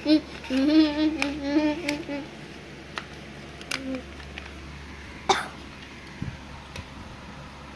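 A voice humming a wavering sing-song tune for the first two seconds, then a short vocal sound and a few sharp clicks and knocks of plastic building blocks on a wooden floor, the loudest knock about five seconds in.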